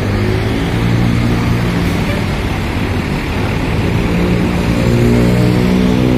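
Hino RK coach's diesel engine running under light throttle as the bus moves in, its pitch stepping up and down as the revs change.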